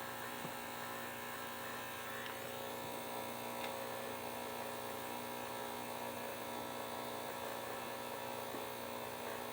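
Steady electric hum of a small ultrasonic cleaner running with a watch case in its bath. A few faint ticks sound over it.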